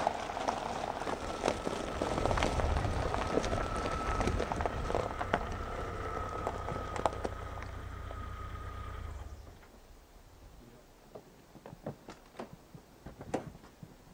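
Car driving slowly over gravel, with the engine running low and the tyres crunching, and a steady high whine over it. The engine and the crunching stop about nine seconds in, leaving scattered light clicks and knocks.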